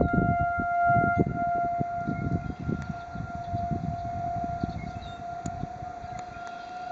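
Outdoor tornado warning siren sounding a steady, held tone during a scheduled test, with an uneven low rumble underneath.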